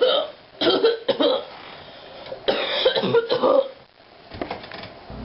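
A person coughing and clearing their throat in three bouts: at the start, about a second in, and a longer run from about two and a half to nearly four seconds in.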